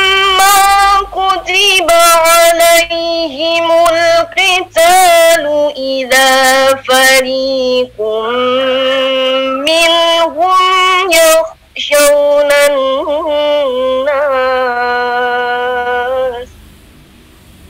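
A young woman reciting the Qur'an in tartil style: a melodic chant in a female voice, with long held notes that bend and ornament in pitch and short breaths between phrases. The recitation stops near the end.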